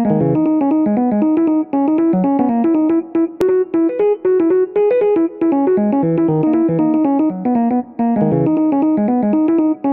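Background music played on an electronic keyboard: a quick, busy run of notes several to the second, carrying on without a break.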